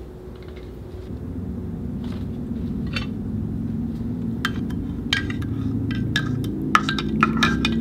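Metal spoon stirring coffee in a ceramic mug, clinking against the sides in quick, irregular strikes from about four and a half seconds in, after a single clink about three seconds in. A steady low drone runs underneath.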